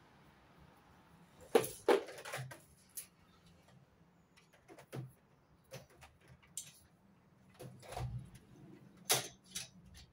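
A plastic coiled garden hose being gathered up and hung on the wall, its coils and plastic nozzle and fittings clacking and knocking irregularly. The loudest knocks come in a pair about two seconds in and again near the end.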